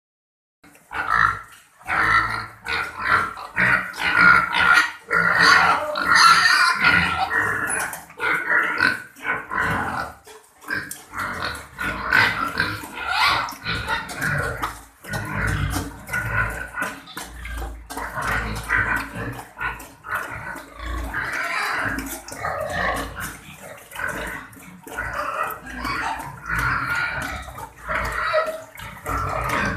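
An animal making short, irregular vocal sounds, one after another with brief breaks.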